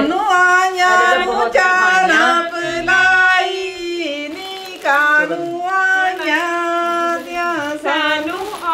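A woman's voice singing a Punjabi wedding folk song (shagna de geet), holding long notes and sliding between them, with no instruments.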